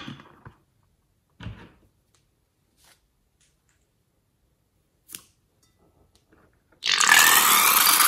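Slime squirting out of the snipped tip of a slime-filled balloon into a glass bowl: a loud, hissing spray lasting about a second and a half near the end. It comes after a single scissor snip about five seconds in.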